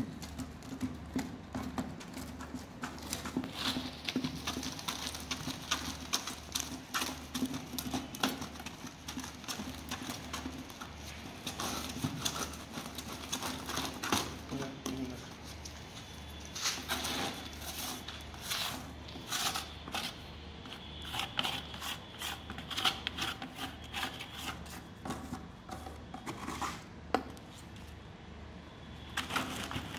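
A stick stirring a thick cement-and-plaster screeding mix in a plastic bucket, with irregular knocks and scrapes against the bucket, over a steady low hum.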